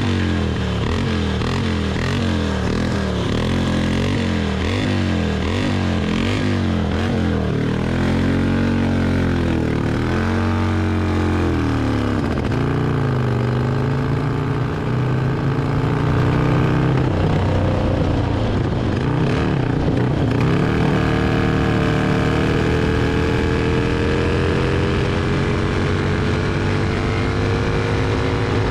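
Nitro-burning 1948 Vincent 1000cc V-twin racing engine, heard close from the bike. Its revs rise and fall in quick blips about once a second, then in slower swells. In the last third the pitch climbs steadily as the bike accelerates.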